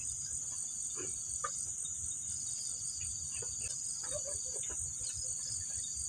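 Night insect chorus: a steady, high-pitched pulsing trill, with a few soft clicks and rustles of handling.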